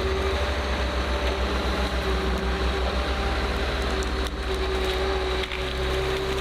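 Heavy machine engine running steadily under load, with wood cracking and splintering as the machine works the timber, a few sharp cracks standing out.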